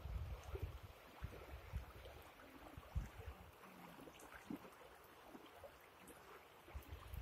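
Faint outdoor background noise with low rumbling bumps on the microphone, strongest near the start and again near the end, and a few scattered faint clicks.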